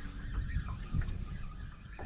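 Wind buffeting the microphone in uneven low gusts, with a few faint short clicks.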